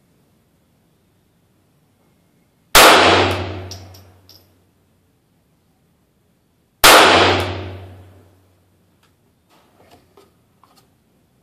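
Two shots from an H&K HK4 pistol firing .22 LR, about four seconds apart, each ringing out for over a second. A few faint clicks follow near the end.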